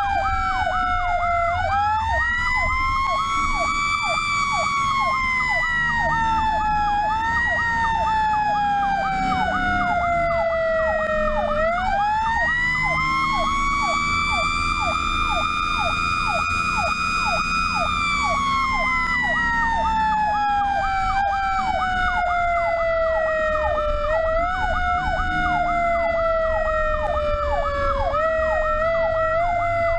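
Fire truck sirens: a wail that climbs quickly and slowly winds down twice, with several short boosts, over a fast electronic yelp. The truck's engine rumbles underneath.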